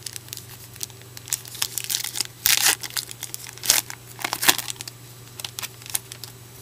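Plastic trading-card pack wrapper crinkling and tearing in short crackly bursts, the loudest about two and a half seconds in, with light clicks of cards being handled in between.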